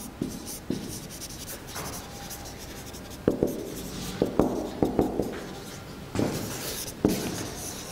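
Dry-erase marker writing on a whiteboard: short scraping strokes, uneven in rhythm, with several sharper taps of the tip in the second half.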